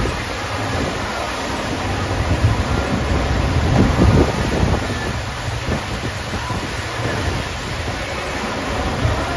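Steady rushing water of a FlowRider surf simulator, its sheet of water pumped up the ramp under a surfer's board, mixed with wind buffeting the microphone. A louder surge of spray comes about four seconds in.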